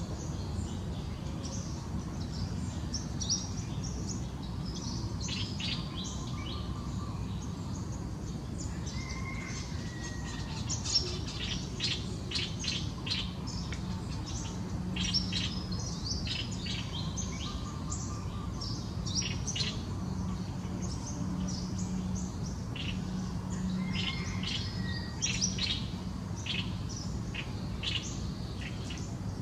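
Small birds chirping: many quick, high chirps in clusters, thickest through the middle and latter part, over a steady low background hum.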